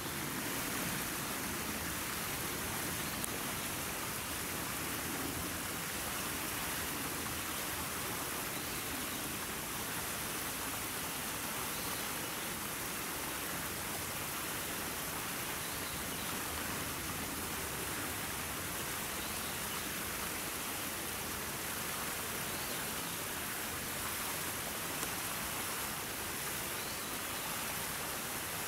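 A steady, even rushing hiss, with no voices or distinct events in it.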